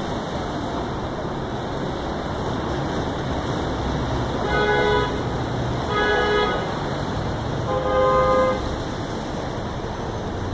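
Car horn honking three times, each blast about half a second long, over steady city traffic noise.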